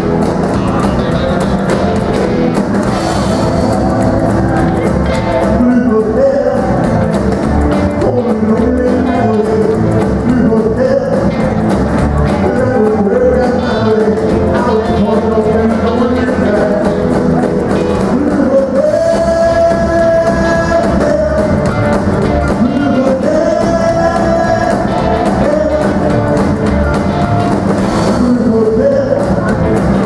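Live rock and roll band playing: drum kit, electric and acoustic guitars, upright double bass and keyboard, with a male singer on vocals. A few long held notes come past the middle.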